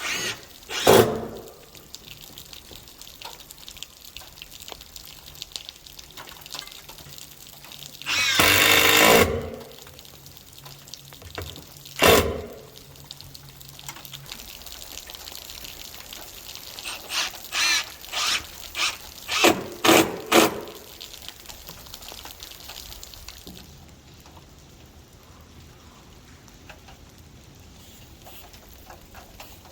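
Milwaukee oscillating multi-tool with a metal blade cutting thin sheet-metal soffit in short bursts: one longer cut about eight seconds in, a brief one near twelve seconds, and a quick run of about six short bursts around seventeen to twenty seconds.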